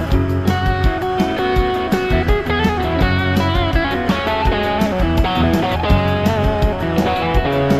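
Background rock music: an electric guitar solo with notes bending in pitch, over a steady drum beat and bass.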